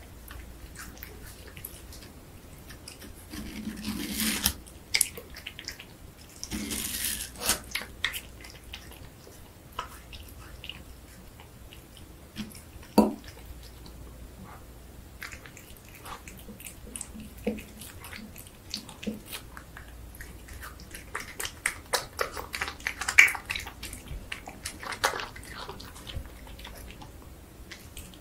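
A cat biting and chewing watermelon flesh: irregular wet crunching bites and smacks, coming in short clusters with pauses between them.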